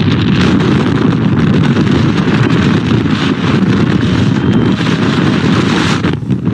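Wind buffeting the microphone aboard a moving boat: a loud, steady rush of noise that cuts out for a moment near the end.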